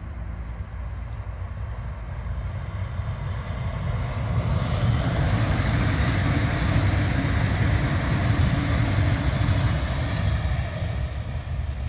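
Deutsche Bahn ICE T high-speed electric multiple unit passing at speed: a continuous rush of wheel-on-rail rolling noise and air that swells from about four seconds in, stays loudest for several seconds, then eases a little as the train moves past.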